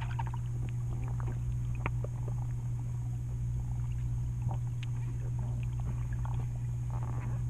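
Underwater sound in a swimming pool: a steady low hum with scattered small clicks and bubbly pops.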